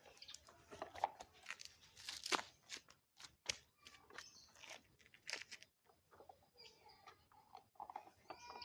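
Crunching and scraping of loose soil being scooped and tipped with plastic toy construction vehicles, in an irregular run of small clicks and grainy scrapes.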